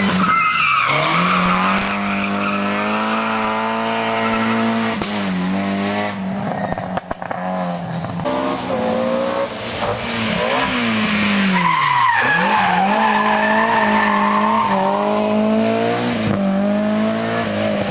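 Rally car engine running hard on a special stage, revs held high and wavering through the bends, dropping sharply twice as the driver lifts and brakes, then climbing again.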